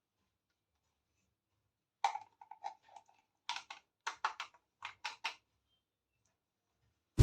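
Light clicks and taps of small plastic toy pieces being handled, about a dozen separate clicks starting about two seconds in and stopping a little past the middle.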